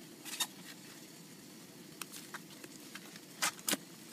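Foil-laminate MRE ration pouches crinkling and rustling as they are handled, with a few short sharp crackles, the loudest pair about three and a half seconds in.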